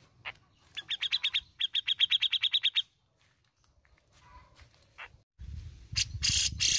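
Grey-cheeked bulbul (cucak jenggot) calling: a single note, then two fast runs of evenly repeated chirps lasting about two seconds, and a short note about five seconds in. Near the end a rustling burst and a low rumble cover the song.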